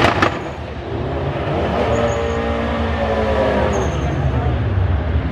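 Car engines: a loud burst of engine noise ends just after the start, then an engine's pitch rises and falls back over about three seconds, over a steady deep rumble of engines running.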